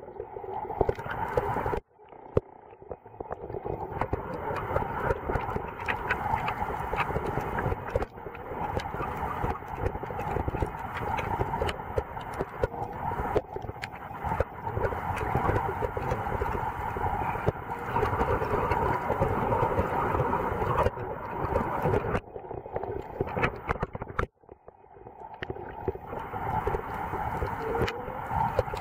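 Muffled underwater noise picked up through a camera's waterproof housing: a steady rush of moving water with many small clicks and knocks. It cuts out briefly a few times.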